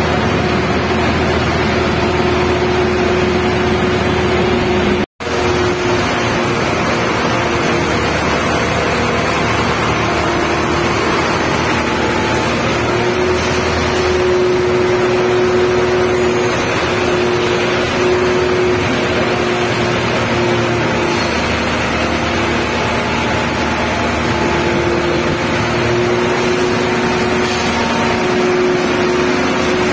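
Steady, loud drone of heavy construction machinery running in a tunnel, with a steady hum through it. It matches a concrete transit mixer truck and shotcrete equipment at work. The sound cuts out completely for a split second about five seconds in.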